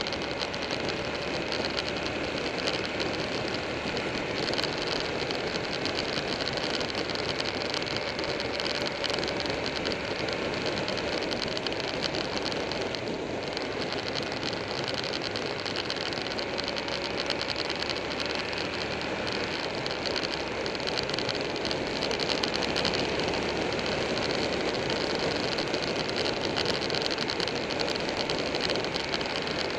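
Motorcycle riding at speed, heard from a camera mounted on the moving bike: steady wind rush with the engine running underneath, a little louder about three-quarters of the way in.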